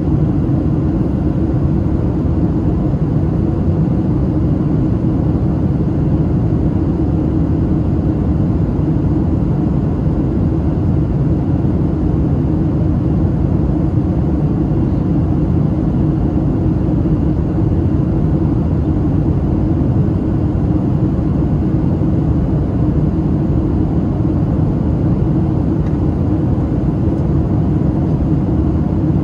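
Steady cabin noise of a Boeing 737-700 in flight on approach: a low, even rumble of the CFM56-7B turbofan engines and airflow over the fuselage, heard from inside the cabin.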